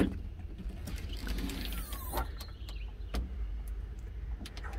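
Floor storage hatch on a boat deck being unlatched and opened: a sharp click of the flush latch at the start, then a few light knocks as the lid is raised, over a steady low rumble.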